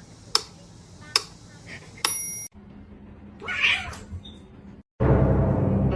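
A cat meowing once, about three and a half seconds in, after a few sharp clicks and a short tone. Loud music starts near the end.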